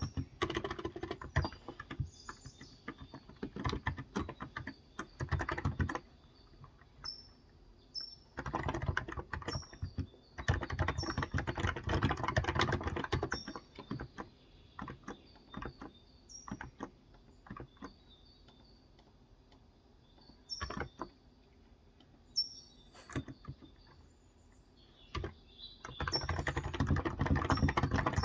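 Typing on a Cox Endeavour tenkeyless keyboard with contactless (electrostatic capacitive) 35 g switches. The typing comes in bursts of rapid keystrokes with gaps of several seconds holding only a few single key presses. Birds chirp briefly and repeatedly in the background.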